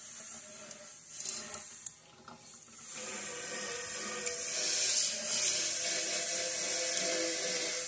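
Kitchen tap running water into a stainless steel sink, rinsing off scouring powder. The water comes on about three seconds in, after a few light knocks, and runs steadily, getting louder a second later.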